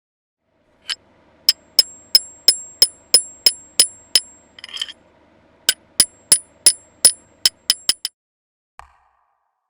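A run of sharp metallic clicks with a bright ringing edge, about three a second, then a brief rustle. A second run of clicks follows, quickening toward the end.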